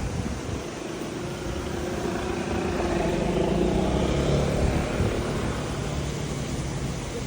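A car driving past outside, its engine and tyre noise growing to a peak about four seconds in and then fading, over steady background street noise.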